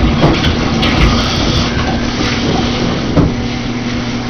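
Water running in a bathtub, a steady rushing with a low hum underneath and a few short knocks.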